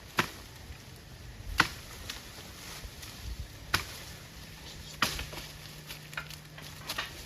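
A tool striking wood: about six sharp, heavy knocks at uneven gaps of one to two seconds. There is no chainsaw running.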